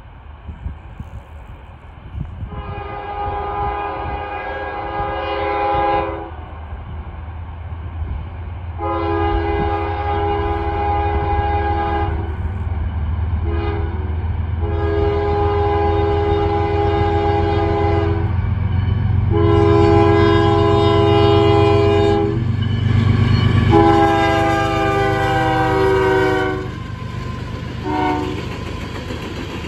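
Union Pacific GE Evolution-series (GEVO) diesel locomotive sounding its air horn for a grade crossing: a run of long chord blasts with one short one, and the last long blast dropping in pitch as the locomotive goes past. The low rumble of the lead and trailing diesel locomotives builds underneath and is loudest as they pass.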